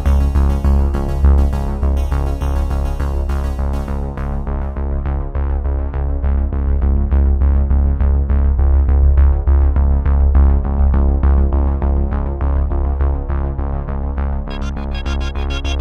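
Background electronic synthesizer music with a steady beat and a heavy bass line. The treble drops away about four seconds in and comes back near the end.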